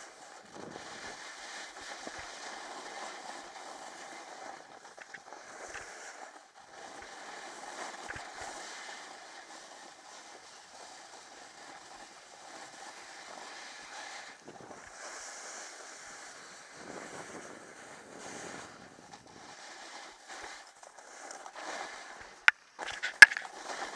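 A snowboard sliding and scraping over hard-packed, crusty snow. The noise comes in surges with short lulls between them. Two sharp knocks near the end are the loudest sounds.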